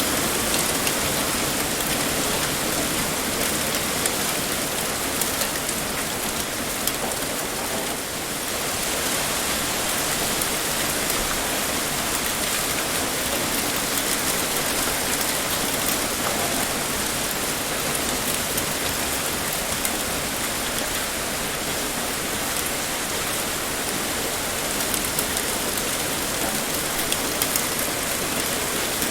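Heavy rain pouring steadily onto surfaces: a dense, even hiss with fine patter.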